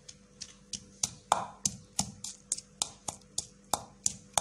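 Wooden pestle pounding a wet paste of green chillies and spices in a terracotta mortar: a steady run of knocks, about three a second.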